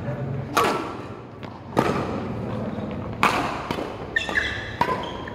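Badminton rally: racket strings striking the shuttlecock in a series of sharp hits, roughly one a second, each with a short echo in a large hall.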